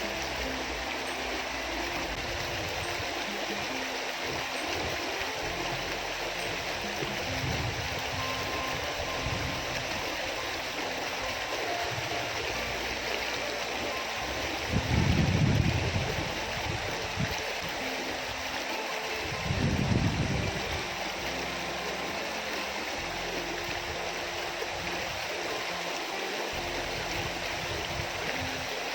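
Small river flowing steadily, with background music over it. Two short low rumbles come midway, a few seconds apart.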